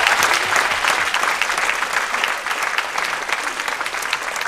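Theatre audience applauding, many hands clapping at once, the clapping slowly dying down.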